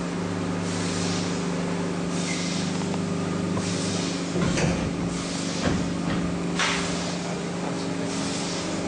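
Plastic injection moulding machine running: a steady hum from its motor and hydraulics, with hissing bursts about every second and a half and a couple of knocks midway.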